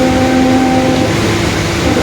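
Mercedes-Benz OF-1721 bus running at road speed, a steady high whine from the differential sitting over the engine and road noise. The whine cuts out about a second in and comes back near the end. The uploader calls it the differential growling ("diferencial roncando").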